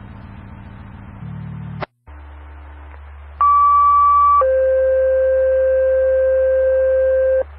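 Two-tone sequential fire pager alert tones on the county dispatch radio channel: a higher tone for about a second, then a lower tone held for about three seconds, toning out Station 44. A click and a steady low radio hum come before the tones.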